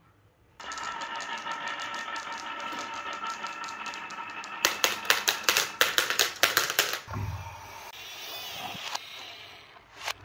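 Glass marbles rolling and rattling down a carved wooden slope track, starting about half a second in. Midway comes a run of loud, sharp clacks as the marbles drop onto each other in a plastic toy trailer, followed by a softer rolling rattle.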